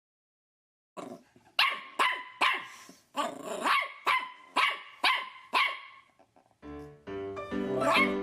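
A dog barking about ten times in quick succession, roughly two sharp barks a second. Piano music starts near the end.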